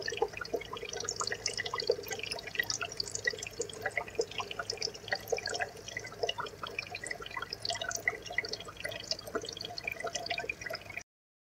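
Aquarium water bubbling and trickling: a dense run of small drips and plinks over a steady wash, cutting off suddenly near the end.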